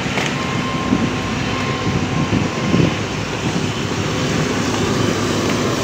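Steady rumble of road traffic, a continuous noisy din with a faint steady hum running through it.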